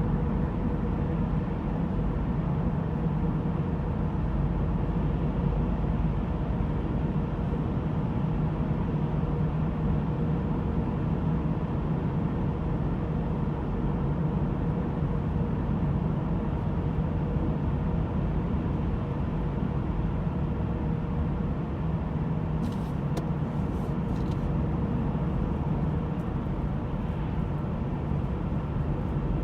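A 2010 Honda Civic LX coupe driving, its engine and road noise steady, with a steady whine running over them that the owner suspects comes from the power steering, its fluid brown but not low. A few faint clicks come near the end.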